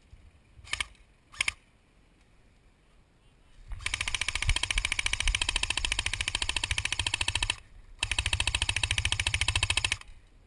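G&G UMG (UMP45-style) airsoft electric gun firing two full-auto bursts, a fast, even rattle: the first about four seconds long, then a short pause and a second of about two seconds. Two sharp clicks come about a second before the firing starts.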